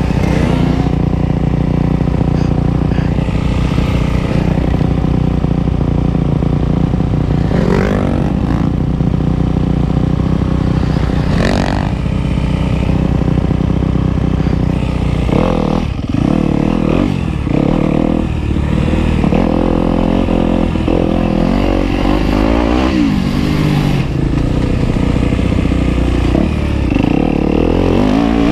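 Off-road vehicle engine running on a trail ride, its pitch rising and falling as the throttle is opened and closed, most often in the second half.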